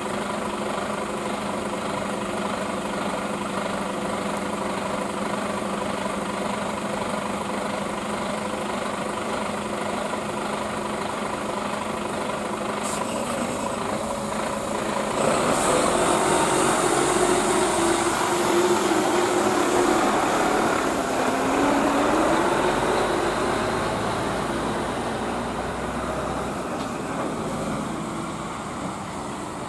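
Mercedes-Benz Arocs heavy truck's diesel engine running at a steady idle as it creeps forward. About halfway through it gets louder as the engine is revved to pull away, its pitch rising and falling, then it fades as the truck moves off.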